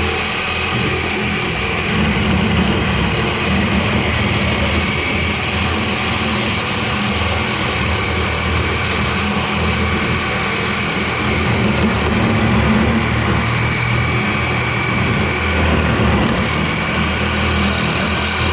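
A motor running steadily and loudly, a low, even hum with a faint high whine above it that rises and falls a little in level.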